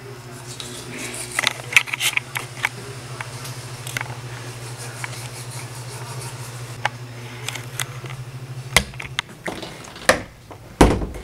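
Manual toothbrush scrubbing teeth, with short scratchy strokes over a steady low hum that stops about nine seconds in. A few loud thumps near the end.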